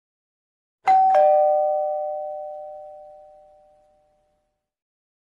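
Two-note ding-dong chime, a higher note and then a lower one about a quarter second later, both ringing out and fading over about three seconds. It is the notification-bell sound effect of a subscribe animation.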